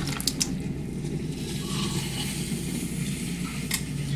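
Wet clay squishing under wet hands as it is coned up and pressed back down on a spinning potter's wheel, over the wheel's steady hum, to homogenize the clay. A few sharp clicks just after the start and one near the end.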